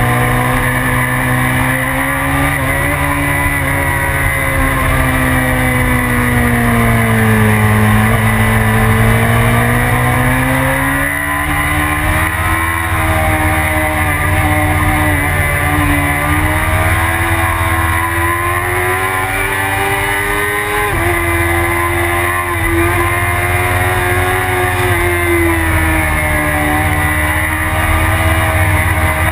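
Onboard sound of a BMW sportbike's engine at speed: its pitch falls and rises smoothly through the corners, with a sudden jump in pitch about two-thirds of the way through, under a steady rush of wind.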